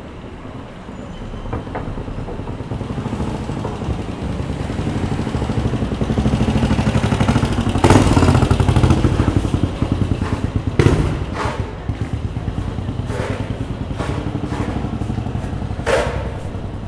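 A vehicle engine passes close by, its low pulsing running louder over several seconds to a peak about eight seconds in, then easing off. A few sharp knocks follow in the second half.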